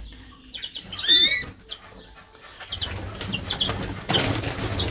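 Small aviary finches giving short high chirps, the loudest a quick rising call about a second in, with wing flutters. In the second half, dry nesting grass rustles as it is brushed aside.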